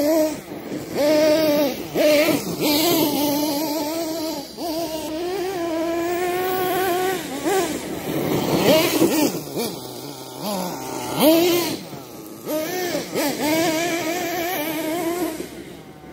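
Nitro engine of a Kyosho Mad Force RC monster truck revving up and easing off as the truck is driven, its pitch rising and falling with the throttle. It fades near the end as the truck drives off.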